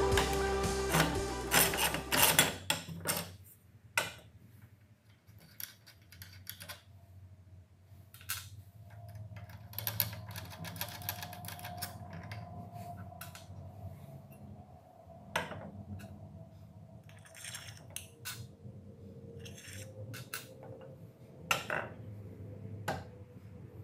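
Background music that stops about two and a half seconds in, then scattered light clicks and knocks of small metal parts being handled on a table saw top: an aluminium bracket fitted to a miter gauge and clamping knobs with bolts set down.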